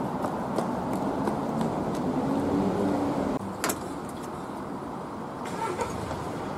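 Road traffic noise on a city street, with light footfalls from someone running. About halfway through it cuts to a quieter outdoor background, and there is a single sharp click.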